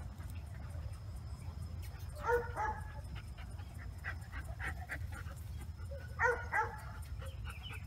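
A dog giving short, high-pitched yips in two quick pairs, about two seconds in and again about six seconds in.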